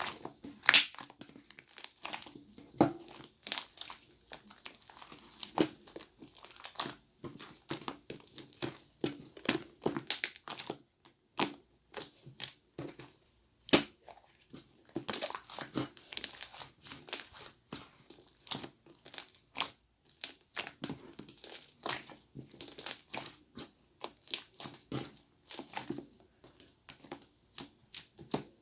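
Cloud slime being squeezed and stretched by hand, making irregular crackling, crinkling clicks and pops.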